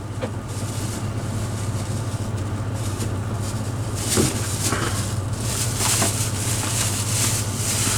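Cab noise of a Class A motorhome under way: a steady low drone of engine and road, with a hiss that grows stronger about halfway through.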